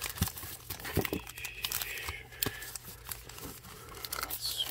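Trading card pack wrappers crinkling and rustling as a stack of packs is handled and shuffled, with many small irregular crackles.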